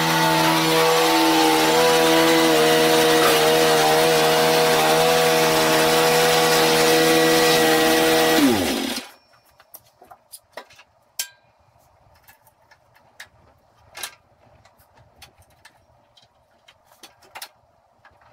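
Garden tractor's small engine running steadily, then switched off about nine seconds in, its pitch dropping as it winds down. A few faint, scattered clicks follow.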